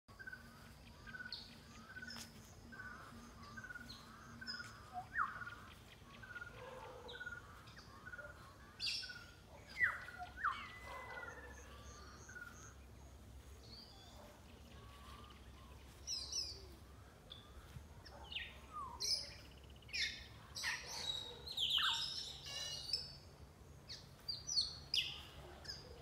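Wild African grey parrots calling from the trees: whistles and sharp calls, some gliding up or down in pitch, that grow louder and busier in the second half. A regular run of short, repeated chirps goes on through the first half.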